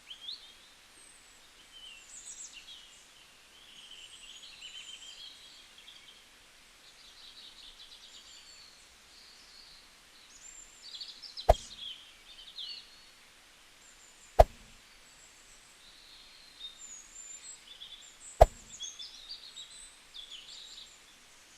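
Small birds chirping and twittering in the background, with three sharp clicks, about three and four seconds apart, in the second half.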